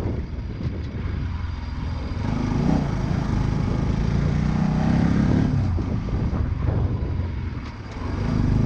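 Motorcycle engine running as the bike is ridden over a rough dirt track, with road and wind noise. The engine note rises a few seconds in, then eases off, dips briefly near the end and picks up again.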